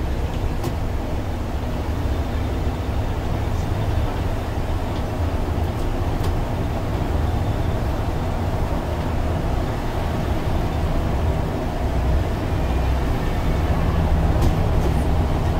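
Inside the cabin of a MAN Lion's City articulated bus with a biogas engine, running at road speed: a steady low engine and road rumble with a few faint clicks, a little louder near the end.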